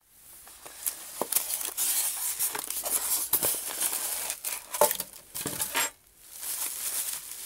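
Bubble wrap and plastic packaging crinkling and rustling as it is handled at a styrofoam box, with many sharp crackles and clicks; a short lull about six seconds in.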